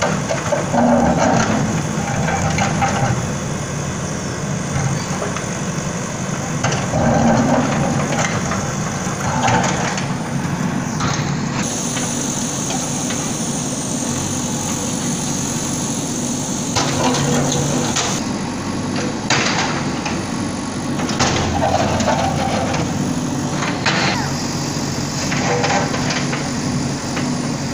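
Bulldozer's diesel engine running steadily, with knocks and cracks every few seconds as the machine breaks up a water tank.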